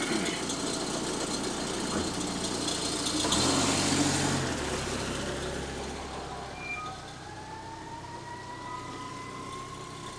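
Car engine running and the car pulling away, swelling to its loudest about three to four seconds in and then fading into the distance. Near the end a faint high tone slowly rises and falls.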